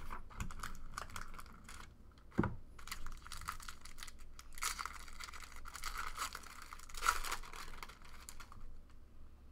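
Hands opening a box of trading cards: paper wrapper tearing and packaging crinkling and scraping in irregular strokes, with a single thump about two and a half seconds in.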